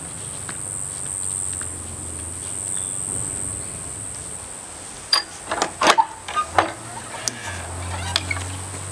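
Steady high insect drone in the yard, with a quick run of sharp clicks and knocks about five to seven seconds in as the chicken coop's wooden door and latch are opened.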